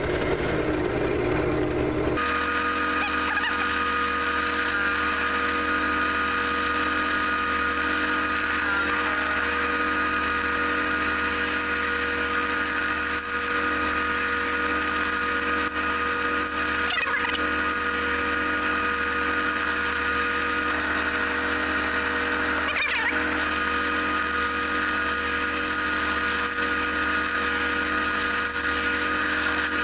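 A small electric drill motor running steadily at constant speed with a fixed high tone, drilling a row of small holes to cut a slot.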